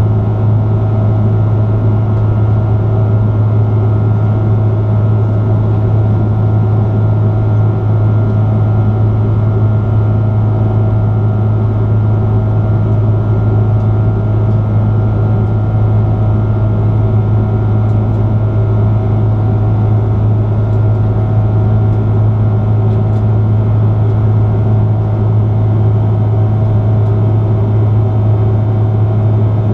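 Steady in-cabin drone of an Airbus A330-300 in flight: its Rolls-Royce Trent 700 engines and the airflow past the fuselage give a strong, even low hum with fainter steady tones above it.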